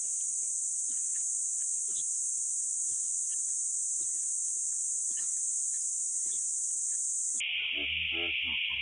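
A steady high-pitched hiss that abruptly drops to a lower-pitched hiss about seven seconds in. A faint voice is heard under it near the end.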